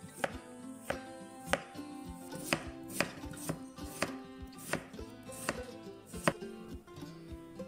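Chef's knife slicing raw potatoes into thin slices on a wooden cutting board: a sharp knock each time the blade meets the board, at an uneven pace of about one to two a second.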